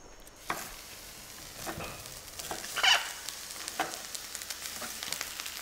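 Marinated squid pieces sizzling in a very hot, dry pan with no oil, the hiss starting about half a second in. Several short knocks sound over it as more pieces go into the pan.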